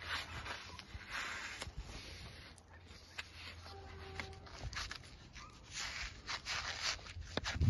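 Intermittent rustling and rubbing with a few light knocks, from hands working on the metal tube frame of a polytunnel, over a steady low rumble.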